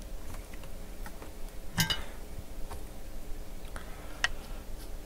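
Scattered light clicks and ticks of soldering work on a circuit board, with a sharper click about two seconds in and another a little after four seconds, over a faint steady hum.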